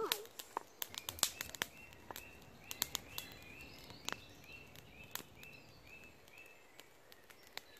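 Sharp, irregular snaps and crackles of dry twigs, from thin kindling snapped by hand and a small campfire burning. A songbird repeats a short high note over and over through the middle.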